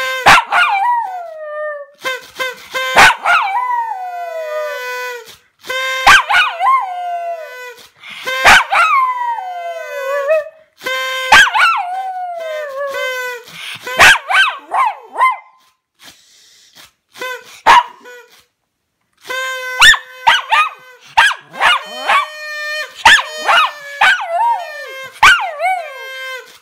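Small white long-haired dog howling along ('singing'): a string of long howls, many sliding down in pitch, mixed with yips and short barks. There is a break of a few seconds past the middle.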